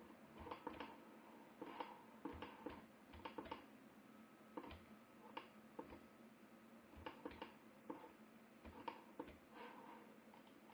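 Faint, irregular clicking of a computer mouse and keyboard, a couple of dozen sharp clicks spread unevenly, over a faint steady hum.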